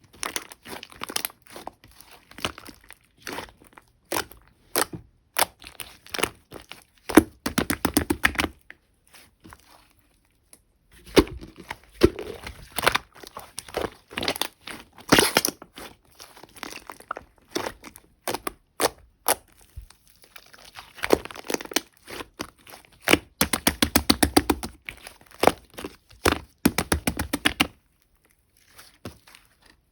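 Glossy chocolate slime with clay mixed in, worked by hand: squeezed, poked and stretched, giving rapid runs of sharp pops and crackles, with two short pauses.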